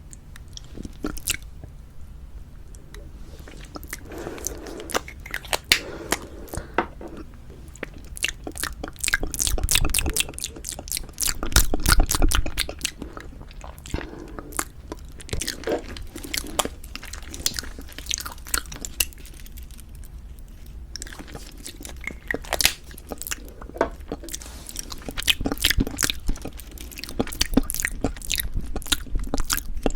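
Lipstick being applied to the lips close to the microphone: waxy swipes and sticky lip smacks as the lips press and part, many small clicks in clusters, with a louder stretch of low thumps about ten to twelve seconds in.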